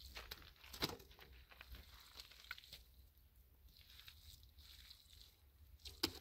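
Faint scattered rustles and light clicks over a low steady hum, with one sharper click near the end.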